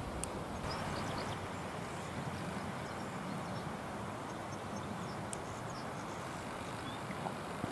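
Steady outdoor background rush in the open air, with a few faint high chirps scattered through it.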